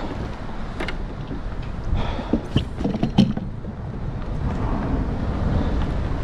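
Scattered knocks and clatters of handling on a fishing kayak, the sharpest a few seconds in, over a steady rumble of wind on the microphone.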